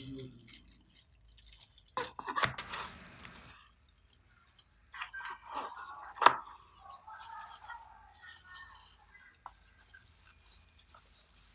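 Kitchen knife slicing through crispy-skinned roast pork on a plastic cutting board: the crisp skin crunching under the blade, with scattered knocks of the blade on the board, the sharpest about six seconds in.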